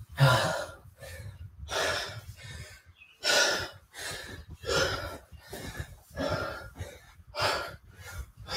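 A man breathing hard from exercise: about six loud breaths, roughly one every second and a half, the first the loudest.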